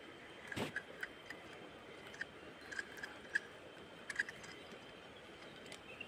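Faint riverside ambience: a steady high thin tone over low hiss, with scattered short high chirps and soft clicks in the first few seconds, the sharpest click about half a second in.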